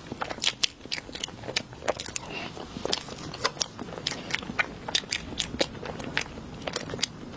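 Close-up eating sounds: a person biting and chewing crunchy food, with sharp, irregular crunches several times a second.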